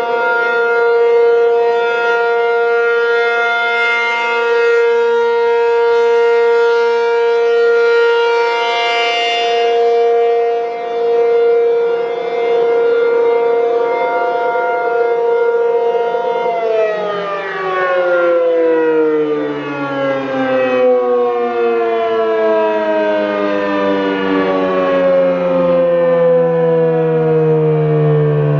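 ACA P-50 outdoor warning siren sounding the steady tone of a 1-minute alert, then about 16 seconds in it cuts power and winds down, its pitch falling steadily and slowly to a low moan as the alert ends.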